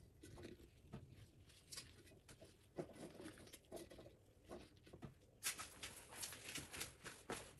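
Faint crinkling and rustling of edible metallic paper handled with gloved hands, in scattered small crackles that get busier about two-thirds of the way through.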